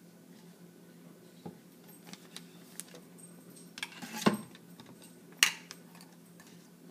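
An egg-dyeing tool and egg clicking and tapping against a plastic cup of egg dye: scattered light clicks, with two louder knocks at about four and five and a half seconds in.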